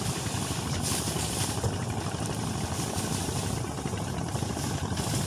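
Fishing boat's engine running steadily with a low hum.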